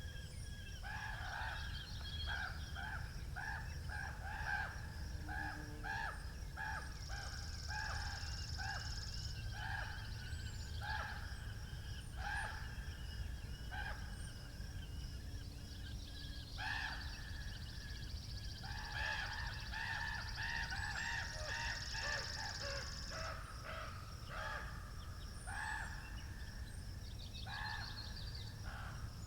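A bird calling in long runs of short, harsh, repeated notes, about two or three a second, which pause for a few seconds midway. This sits over a steady low wind rumble, with faint high chirps from other birds.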